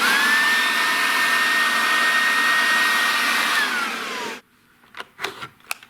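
SnapFresh 20-volt cordless battery leaf blower switched on, reaching full speed at once with a rush of air and a steady high motor whine. About three and a half seconds in it is switched off, and the whine falls in pitch as the fan spins down.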